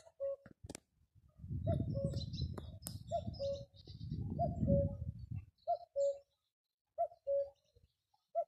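Common cuckoo calling its two-note 'cu-ckoo', the second note lower, about seven times at a steady pace of roughly one call every 1.3 seconds. A low rumble sits under the calls from about one and a half to five and a half seconds in, with faint chirps of small birds.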